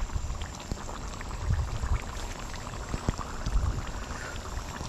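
Chicken curry simmering in the pot, bubbling with many small irregular pops, over a low rumble that comes and goes.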